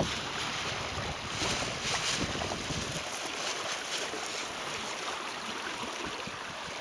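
Water rushing and hissing along the hull and outrigger floats of a kayak under sail, with low wind rumble on the microphone that eases about three seconds in.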